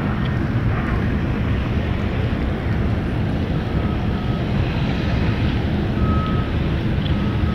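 Steady low outdoor rumble, with a short, high electronic beep repeating roughly once a second from about three and a half seconds in.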